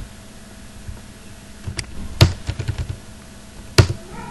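Computer keyboard typing: scattered keystrokes, a quick run of them about halfway through and a couple of louder key strikes.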